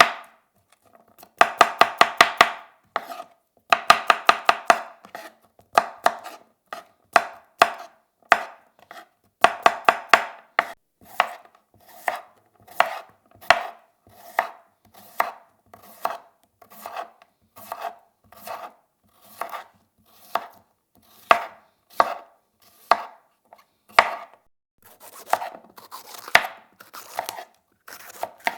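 Knife chopping vegetables on a cutting board. Quick runs of several rapid strokes in the first few seconds, then slower cuts at about one to two a second, each a sharp knock on the board.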